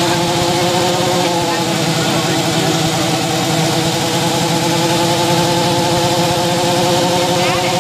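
Harley-Davidson Fat Boy's V-twin engine running steadily at an even speed on a rolling demo rig.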